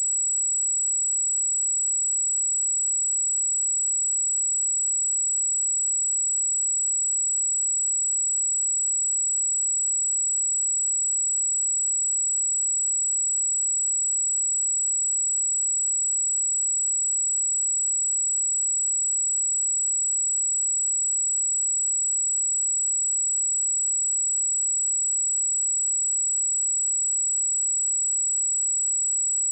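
A steady, unbroken 7812 Hz sine-wave test tone: a single high-pitched pure whistle at constant level.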